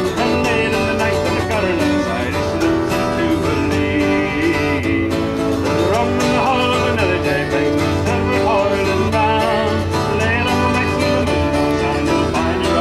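Fiddle and acoustic guitar playing a folk song in a country style, the fiddle's wavering, sliding notes over steady strumming.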